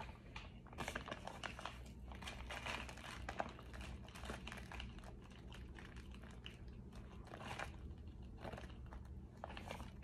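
Close-up mouth sounds of someone biting and chewing something hard and crunchy, with a quick run of sharp crunches throughout, densest in the first half.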